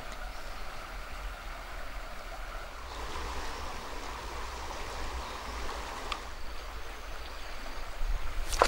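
River water flowing steadily past the bank, an even rushing hiss. A brief sharp click comes near the end.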